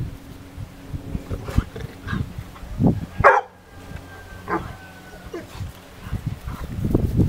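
A dog giving several short barks at a goat it is playing with, the loudest about three seconds in.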